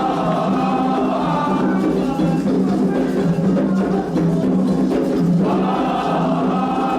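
Candomblé toque for Ossain: atabaque hand drums beating steadily under a group of voices singing in chorus. The singing thins out through the middle and comes back in full about five and a half seconds in.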